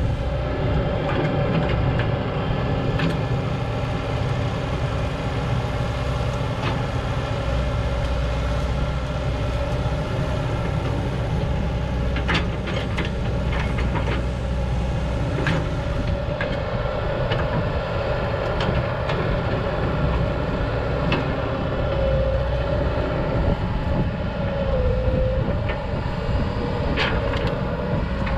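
1993 Cat E120B excavator running, its diesel engine and hydraulics making a steady drone and whine, with a few sharp metallic clanks from the machine working.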